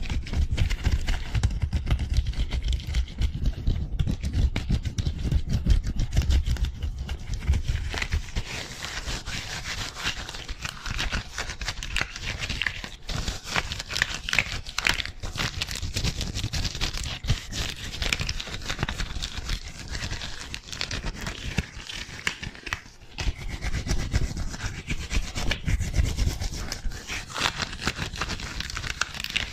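Gloved hands rubbing fast against each other and along the forearms close to a microphone: a dense run of quick rubbing strokes. There are low thuds through the first eight seconds and again around twenty-five seconds in.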